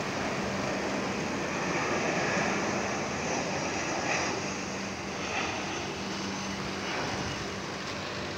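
Twin-engine jet airliner flying low overhead on approach with its landing gear down, its engines a steady noise that eases slightly towards the end.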